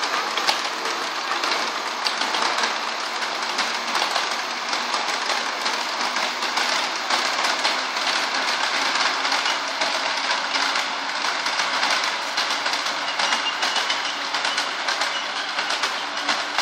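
Wheels of a loaded 5-inch-gauge ride-on miniature train clicking steadily over the rails as the long string of passenger cars rolls past. A faint thin whine joins near the end.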